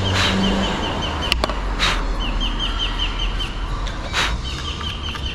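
A small bird calling in three short runs of rapid, repeated chirps, about five a second, over a steady low hum. Several sharp clicks and knocks sound in between.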